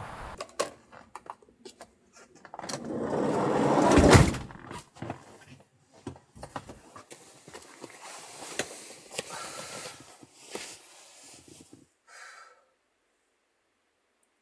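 Clicks and knocks of something being handled, with a rising rush that ends in a sharp thud about four seconds in; the sounds stop shortly before the end.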